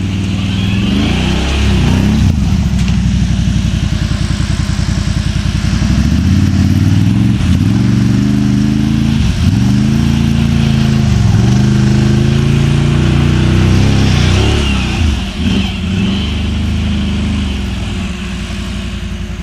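Can-Am Outlander XMR 1000 ATV's Rotax V-twin through dual slip-on exhausts, accelerating and easing off again and again while being ridden, its pitch rising and falling with the throttle. It drops back briefly a few times and runs a little quieter and steadier near the end.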